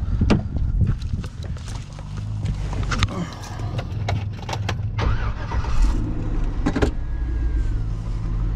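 Clicks, knocks and rattles as someone climbs into a pickup truck's cab and handles the door and fittings, over a low steady vehicle rumble.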